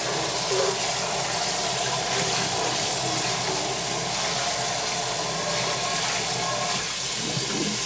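Kitchen faucet running steadily into a cast iron skillet held in a stainless steel sink, rinsing out the coarse salt it was scoured with.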